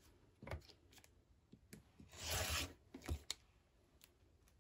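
Rotary cutter rolling along a quilting ruler through a paper-backed fabric block: one short scraping cut about two seconds in, with a few light clicks and knocks of the ruler and cutter being handled.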